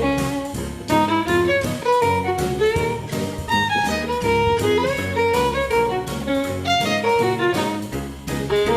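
Instrumental background music with a busy, quick-moving melody over a steady beat.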